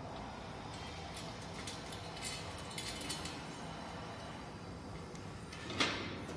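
Faint metallic clicks and ticks of bolts and nuts being fitted by hand into a steel weight bench frame, with one louder clank near the end as the frame is moved.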